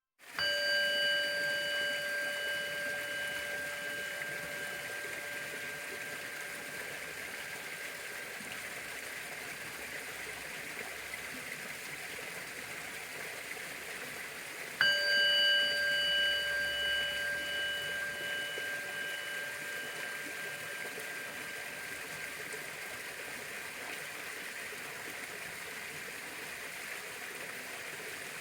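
Orin, a Japanese Buddhist bowl bell, struck twice about fifteen seconds apart. Each strike rings on with several steady tones that fade slowly, over a constant hiss.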